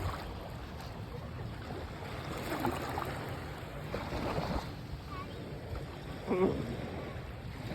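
Gentle surf washing at the shoreline with wind on the microphone, a steady rushing noise.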